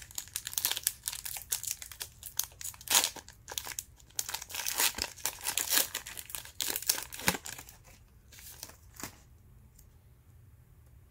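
Plastic wrapper of a trading-card pack crinkling and tearing as it is ripped open and handled, in quick irregular bursts that die away about nine seconds in.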